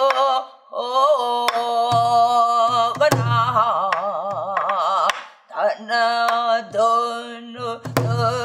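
A woman singing Korean guum, wordless pansori-style vocal syllables with a wide wavering vibrato, while accompanying herself on a buk barrel drum: low drum beats and sharp stick clicks under the voice. The singing breaks briefly about half a second in and again around the middle.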